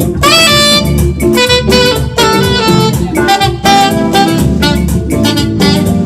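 Saxophone playing a melody with quick rising runs over a band, drums keeping a steady beat.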